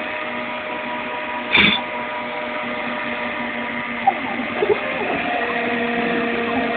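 CNC machine running steadily with a constant whine made of several held tones, and one short, loud burst about a second and a half in.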